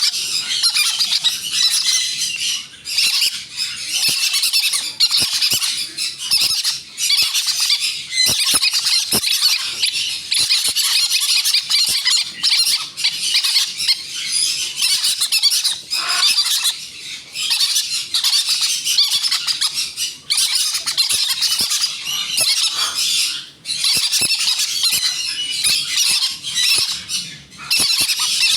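Green-cheeked conure chicks giving continuous raspy, high-pitched food-begging squeals as they are hand-fed.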